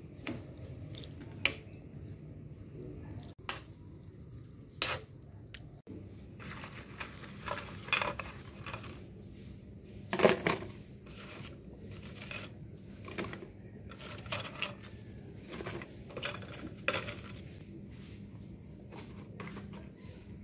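Kitchen utensil sounds: a metal spoon clinking and scraping in a frying pan, then hands handling food in a plastic bowl, heard as irregular sharp clinks and clicks.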